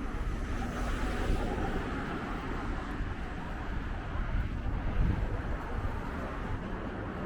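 Outdoor city street ambience: a steady low rumble like distant traffic, with wind on the microphone.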